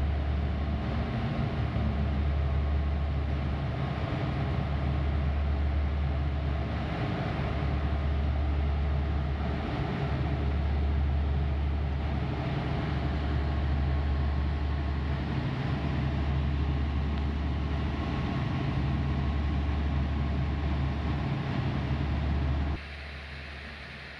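Flood-control pumping station pumps running under load, a steady low drone with a rush of moving water, as floodwater is pumped out through the discharge pipes. The sound drops off sharply near the end.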